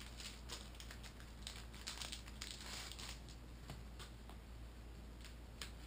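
Faint rustling and crinkling of packaging and gear being handled, with a few light ticks scattered through.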